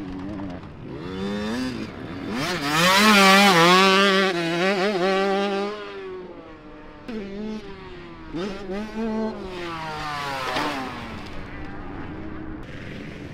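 Small youth motocross bike engine revving hard on the track, its pitch climbing and dropping again and again with the throttle and gear changes. It is loudest about three to six seconds in as the bike passes close, then runs fainter as it rides away.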